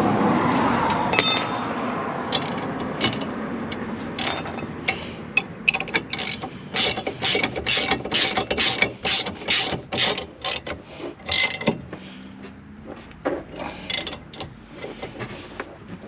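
Hand ratchet wrench clicking as a bolt is turned, in an even run of sharp clicks at about two to three a second through the middle, with a ringing metal clink about a second in.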